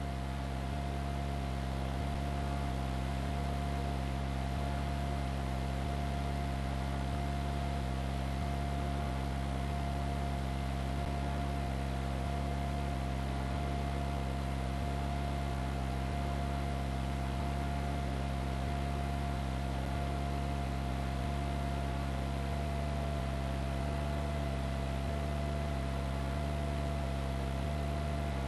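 Steady low drone of a helicopter heard from inside its cabin, with a constant whine on top.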